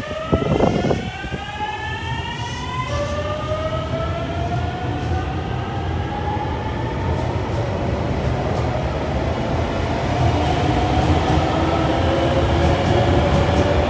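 JR Shikoku 8000 series electric train's Toshiba GTO VVVF inverter whining as the train accelerates away: a stack of tones rising in pitch, with a sudden jump about three seconds in, then climbing slowly. Wheel and motor rumble grows louder throughout, and there is a brief loud noise just after the start.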